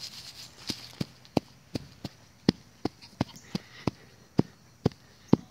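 A series of sharp knocks in an uneven run, about two to three a second, after a faint hiss at the start.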